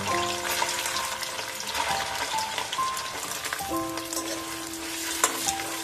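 Paneer cubes sizzling as they fry in hot oil in a metal kadai, with a few clicks of a metal slotted spoon against the pan near the end.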